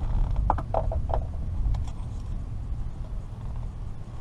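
Low, uneven rumble of wind buffeting the microphone on open water, with a quick run of four short raspy sounds about half a second to a second in.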